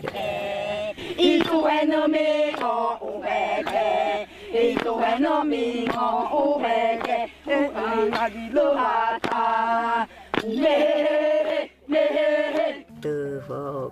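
Voices chanting together in short phrases.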